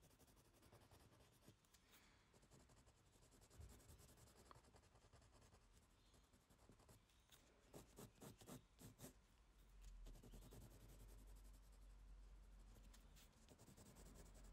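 Faint scratching of a black Prismacolor Premier coloured pencil on Canson Mi-Teintes paper, laying down dark background colour in short strokes, with a quicker, louder run of strokes about halfway through.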